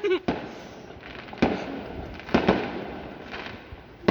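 Fireworks going off a few houses away: a series of sharp bangs, about one a second, each trailing off as it echoes.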